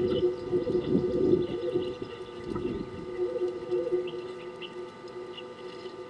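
Doves cooing: a low, wavering call that fades after about four seconds, with a few faint, short high chirps from other small birds.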